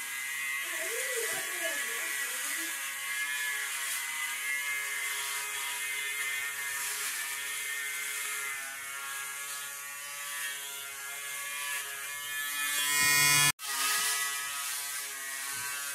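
Braun Series 3 electric shaver buzzing steadily as it is run over a closely shaved scalp. The sound cuts out for a moment near the end.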